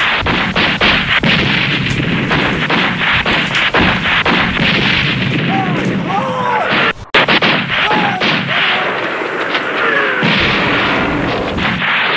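Dense, continuous gunfire from many guns, shots overlapping rapidly as in a battle. The firing breaks off for a moment about seven seconds in, then resumes.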